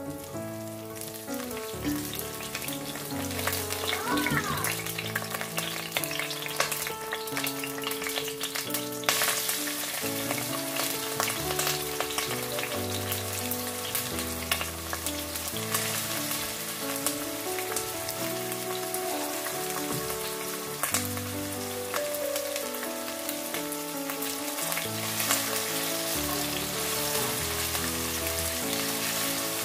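Sliced garlic and onion sizzling in oil in a stainless steel pot, now and then stirred with a spatula; the sizzle grows louder about nine seconds in. Background music plays throughout.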